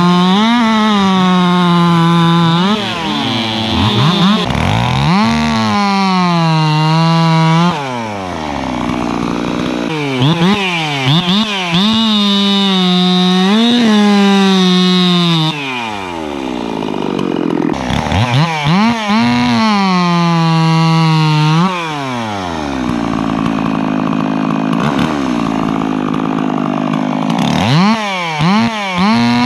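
Two-stroke race chainsaws making warm-up cuts through a squared timber. The engine is held at high revs and loaded in the cut several times, with quick rev-ups and drops between cuts and a few lower, quieter spells.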